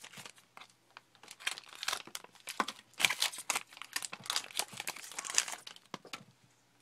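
A trading-card pack wrapper crinkling and tearing as it is ripped open, a dense run of irregular crackles and rips, busiest through the middle and dying away near the end.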